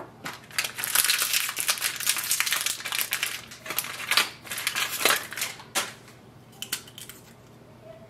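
Plastic crinkling and crackling as the orange protective seal tape is peeled off an HP ink cartridge and the plastic packaging is handled. The crackling runs for about five seconds, then gives way to a few light clicks.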